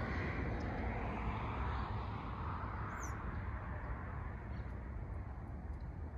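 Steady outdoor traffic noise with a low rumble, easing off a little after a couple of seconds, and a short, high falling bird chirp about three seconds in.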